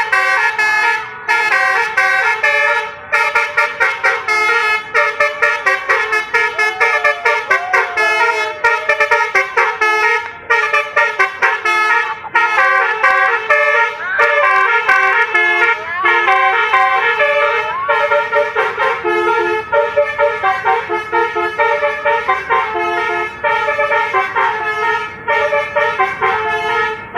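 Basuri V4 musical horn on a coach bus playing a fast melody of short stepped notes in rapid bursts, with a few sliding notes in the middle.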